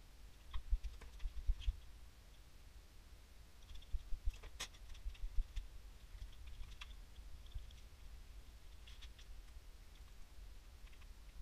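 Hand ratchet clicking in short, irregular bursts as oil pan bolts are loosened, with one sharper metal click about four and a half seconds in.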